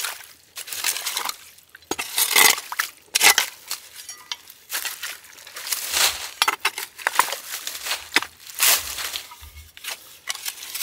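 Small shovel digging into wet mud and stony soil at a spring seep: repeated irregular scraping, chopping strokes with wet squelching as a channel is cut for the water.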